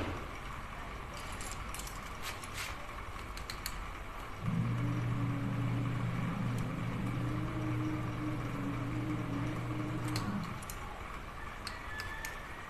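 Light metallic clinks and taps of hand tools against a diesel engine block while a piston is being fitted. About four and a half seconds in, a steady low motor hum starts abruptly, holds an even pitch for about six seconds, and stops abruptly.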